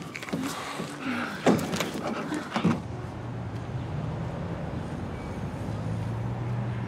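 Close kissing and heavy breathing, with two sharp smacks. About three seconds in it gives way to a steady low hum of night street ambience.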